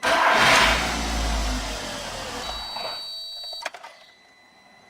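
VW SpaceFox's starter motor cranks the engine, which catches at once and runs briefly before being switched off with a click about three and a half seconds in. No grinding from the starter can be heard; its bushing has just been cleaned and lubricated, and the noise is gone.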